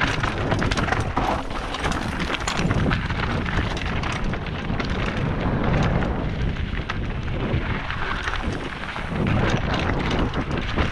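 Mountain bike riding down a rocky, gravelly trail: tyres crunching over loose stones and rock slabs, with frequent sharp knocks and rattles from the bike, under rumbling wind noise on the camera microphone.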